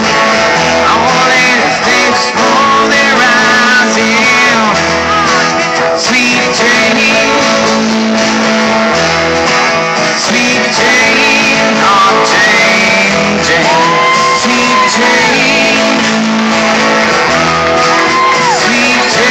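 Live band playing amplified guitars with a singing voice over them.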